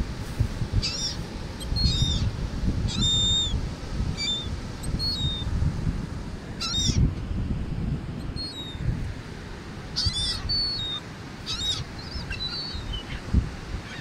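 Gulls calling: short, high cries about once a second, some dropping slightly in pitch. They sound over a constant low rumble of wind and surf.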